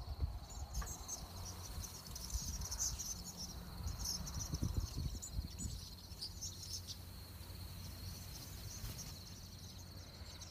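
A large flock of migrating swallows twittering overhead: a busy scatter of short high chirps, thickest in the first half and thinning out later. A steady high thin tone runs underneath, and wind rumbles on the microphone.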